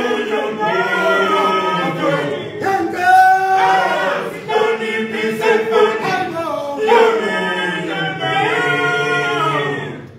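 Male choir singing a cappella, many voices in harmony with long held and gliding notes; the singing falls away near the end.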